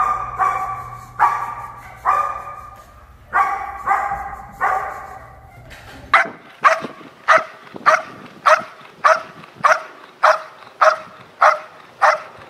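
A protection-trained dog barks repeatedly at a helper in a bite jacket, in irregularly spaced barks that echo in a large room over a low background hum. About six seconds in, it changes abruptly to a second dog barking in a quick, even rhythm of about two barks a second at a decoy in a bite jacket.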